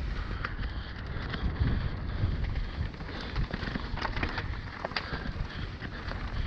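Mountain bike descending a dirt trail at speed: wind buffeting the camera microphone as a steady low rumble, with tyres rolling over dirt and loose stones and scattered sharp clicks and rattles from the bike over the rocky ground.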